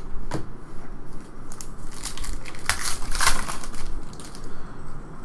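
Crinkling and tearing of a trading-card pack wrapper being handled and ripped open, with the loudest crackle in the middle.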